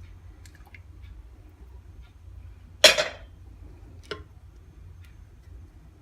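Kitchenware clinking while ingredients go into the cooking pot: one loud, short clatter about three seconds in and a lighter click about a second later, over a low steady hum.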